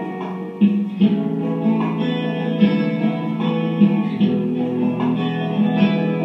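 Instrumental guitar music: plucked guitar notes picked out in a steady rhythm over a sustained low bass.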